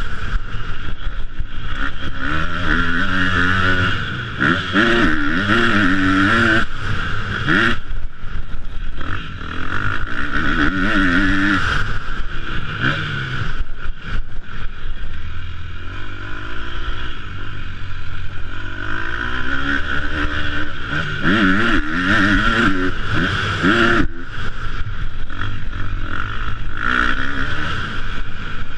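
Motocross bike engine heard from on board, revving up and down repeatedly as the rider accelerates and shifts, with the throttle briefly closing several times.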